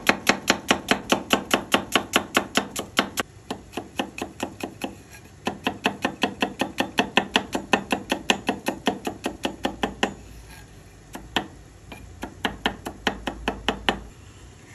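A knife chopping food on a cutting board in fast, even strokes, about four or five a second. The chopping comes in runs with short pauses about three and ten seconds in, and stops shortly before the end.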